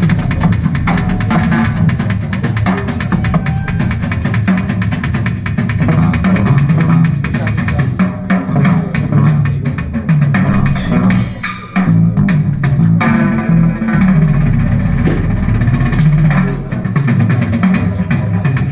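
Band music with drum kit, bass guitar and electric guitar playing back through a JBL hi-fi loudspeaker system, with a steady beat and a brief drop-out about two-thirds of the way through.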